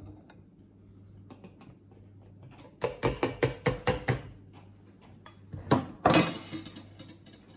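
Clicks and knocks of a plastic blender lid being worked off the jug: a quick run of about eight sharp clicks, then two louder clatters near the end.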